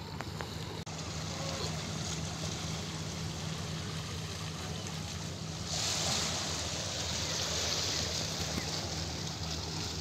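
Small sea waves lapping and washing over a flat rock shelf at the shoreline, with a louder, hissing wash just past halfway, over a steady low hum.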